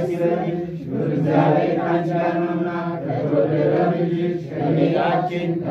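Voices chanting an Ethiopian Orthodox hymn (mezmur) in long held notes, phrase after phrase with short breaks between.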